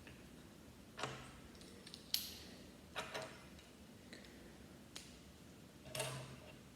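Plastic Lego bricks clicking as they are pressed together during building: a handful of sharp clicks about a second apart.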